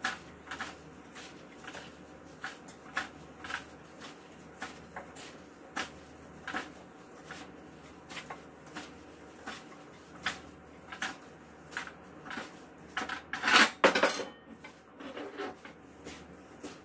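Plastic-gloved hands mixing bibimbap ingredients in a frying pan: irregular small knocks and scrapes of the pan and food, with a louder run of knocks about thirteen to fourteen seconds in.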